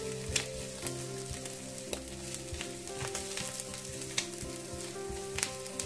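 Chopped ginger and garlic sizzling in oil in a stainless steel frying pan, stirred with a spatula that scrapes and taps against the pan now and then.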